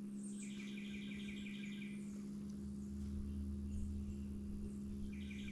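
Steady low hum of a 68 Hz tone played through a small speaker. Over it a bird calls a quick run of repeated high notes, about half a second in and again near the end.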